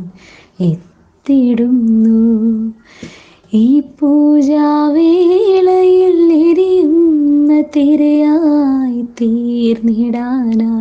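A woman singing a slow Malayalam song unaccompanied, in long held, gently wavering notes. She sings three phrases, with short pauses after the first second and around three seconds in.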